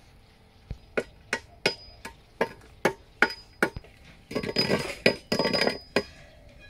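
Hammer striking metal in a steady series of ringing blows, about two and a half a second, with the metal ringing on after each strike; near the end the blows give way to a denser, noisier clatter lasting about a second and a half.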